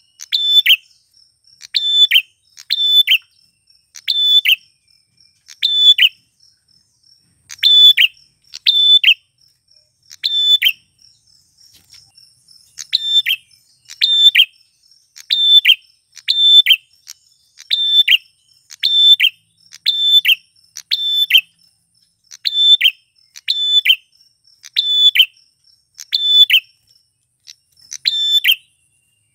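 Male prinia (prenjak klawu) calling over and over, a sharp high chirp with a falling tail about once a second, with a few short pauses. A faint, steady high insect trill runs under the calls until about two-thirds of the way through.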